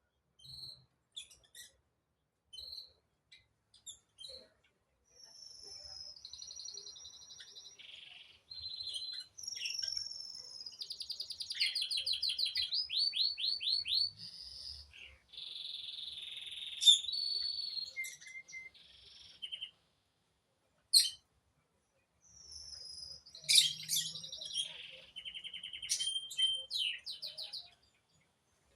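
A small songbird singing: varied chirps, whistled notes and fast trills in two long bouts with a pause of a few seconds between them.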